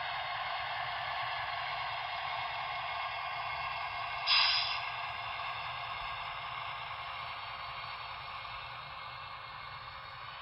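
Sound decoder of a Broadway Limited HO-scale SD70ACe model locomotive playing through its small onboard speaker: a steady rushing of dynamic brake blowers, with a short sharp hiss of air about four seconds in. The rushing slowly fades toward the end.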